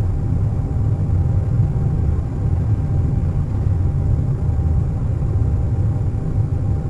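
Airliner cabin noise at cruise: a steady, deep rumble of engines and airflow, with a faint even hum above it.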